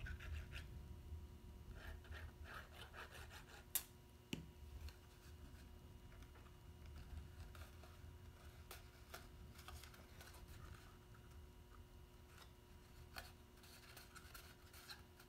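Faint rustling and rubbing of cardstock being handled, folded and pressed together as a paper box is glued, with a sharp click about four seconds in.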